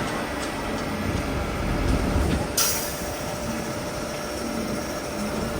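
Heavy diesel truck machinery running with a steady rumble, with a short sharp hiss of air about two and a half seconds in.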